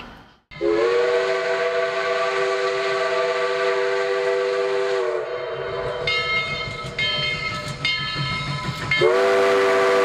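Multi-chime train whistle sounding a long chord blast. In the middle come several shorter, higher-pitched toots, and near the end a second long chord blast begins.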